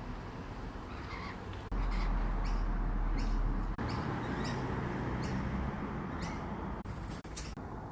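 Lorikeet giving a run of short, rising chirps, about two a second, with a low rumble under the first few of them.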